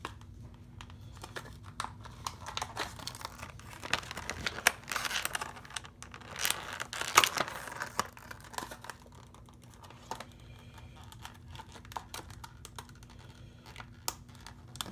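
Packaging of a new faucet cartridge being handled and torn at, crinkling and crackling with scattered clicks, in irregular bursts that are loudest from about four to eight seconds in.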